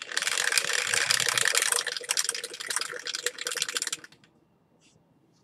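Two dice rattling rapidly inside a clear plastic dice dome shaken by hand, for about four seconds before stopping abruptly.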